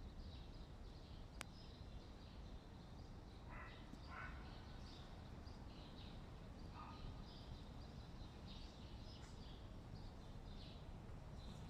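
Faint outdoor background: a steady low rumble with small birds chirping faintly throughout. There is a single sharp click about one and a half seconds in, and two short soft sounds around four seconds in.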